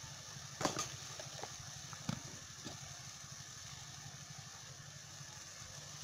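A few short clicks and knocks of plastic containers being handled over a grinding stone, the loudest about a second in, over a steady low hum.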